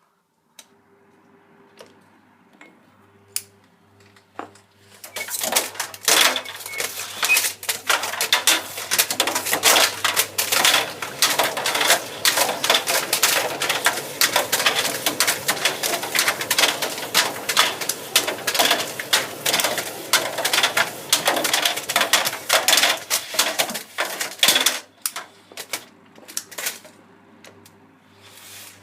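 Tumble dryer running with hard objects tumbling in the drum: after a few seconds of low motor hum, a fast, dense clatter of knocks and rattles sets in and goes on for about twenty seconds, then dies back to the hum near the end.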